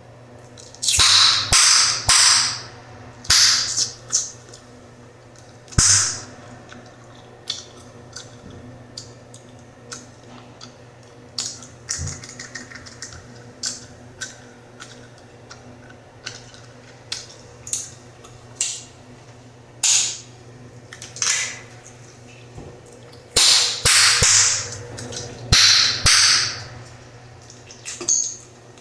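Bubblegum chewed with the mouth, snapped and popped loudly: many sharp cracks scattered throughout, among louder hissy bursts of wet chewing that cluster near the start and again near the end.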